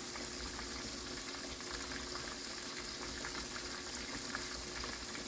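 Catfish pieces deep-frying in a pot of hot oil: a steady sizzle.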